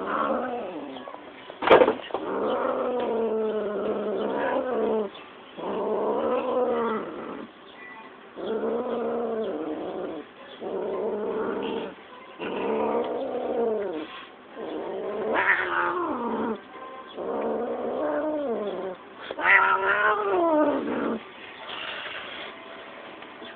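Calico cat yowling in long drawn-out calls, about one every two seconds, each rising and then falling in pitch, as it play-fights with a hand, clawing and biting at it. One sharp knock about two seconds in.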